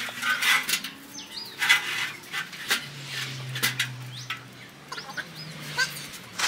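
Birds calling with short chirps and whistles, over scattered knocks and clanks as an aluminium stepladder is shifted. A low drone comes in about three seconds in and lasts under two seconds.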